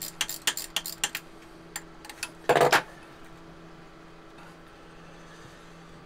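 Metal tool clicks and clinks as a spanner works the bolts on a marine diesel engine's raw water pump, a quick irregular run in the first second, then one short metallic clatter about two and a half seconds in, over a faint steady hum.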